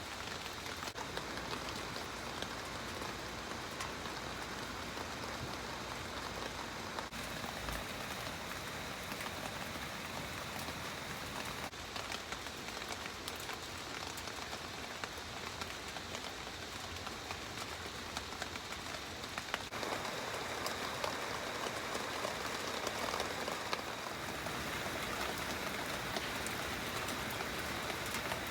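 Steady rain with a dense patter of drops, getting a little louder about two-thirds of the way through.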